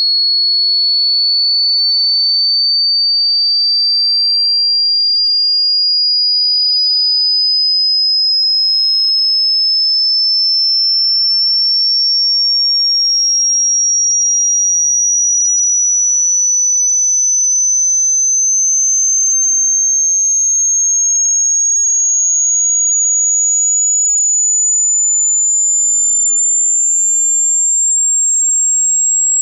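Pure sine-wave test tone from a 20 Hz to 20 kHz hearing-test sweep: a single high-pitched whistle gliding slowly and steadily upward in pitch at an even, loud level.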